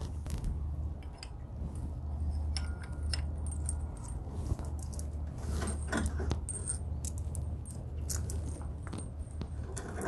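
Light metallic clinking and jingling as a steel pulley bracket is fitted onto the end loop of a garage door extension spring, with a cluster of small clinks about halfway through. A steady low hum runs underneath.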